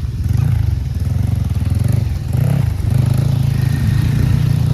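Jeep engine running under load on a broken dirt road, a steady low drone that dips briefly about two seconds in and then picks up again.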